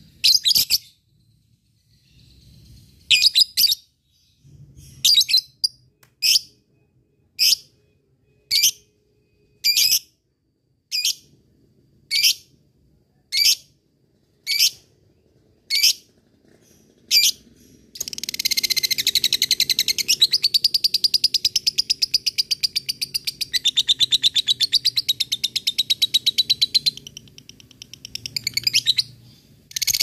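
Lovebird calling: single sharp chirps about once a second for the first half, then a long, fast, rattling chatter (the 'ngekek') lasting about nine seconds, and two more chirps near the end.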